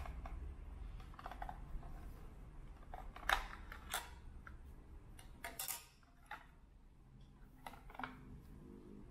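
Small plastic clicks and knocks from handling a 1982 Coca-Cola vending-machine-shaped AM/FM radio as its plastic battery cover is unclipped and taken off, the two sharpest clicks about three and four seconds in. Scattered lighter clicks follow as the radio is handled and set down.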